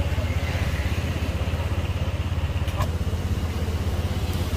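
Motorbike engine idling close by, a steady low putter, with a light click about three seconds in.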